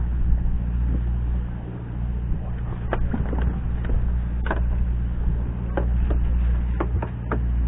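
Fishing boat's engine running with a steady low drone, with a few sharp clicks and knocks on deck from about three seconds in.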